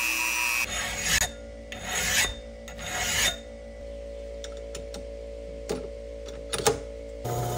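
Three rasping strokes about a second apart, a hand abrasive tool scraped across a part, followed by a few light clicks. A power tool's steady whine is heard briefly at the start and again near the end, each cut off abruptly.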